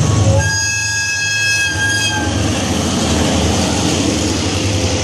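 Train horn sounding one steady note for about two seconds, over the continuous rumbling noise of the passing train.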